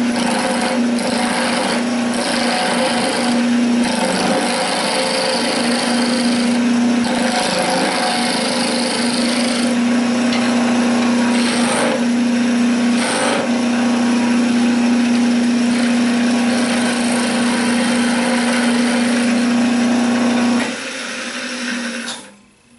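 Wood lathe spinning a long wooden spindle while a hand-held turning tool cuts it: a steady motor hum under a rushing, scraping noise of the tool on the wood. The hum cuts off about two seconds before the end and the rest dies away a second later.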